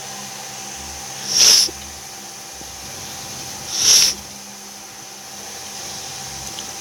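Two short, loud hisses about two and a half seconds apart, each swelling briefly and then cutting off, over a steady background hum.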